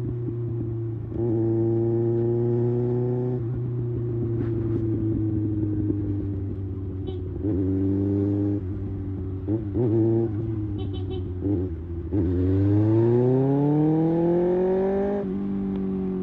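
Kawasaki Ninja ZX6R inline-four engine through an IXIL slip-on exhaust, revving. The throttle is opened and closed several times, with a few quick blips. Near the end comes one long rise in pitch, then the engine eases off and the revs slowly fall.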